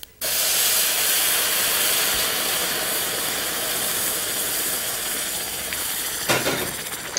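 Boiling water poured into a hot pan of rice sautéed in ghee, hissing loudly as it hits. It starts abruptly and slowly dies down, with a brief knock near the end.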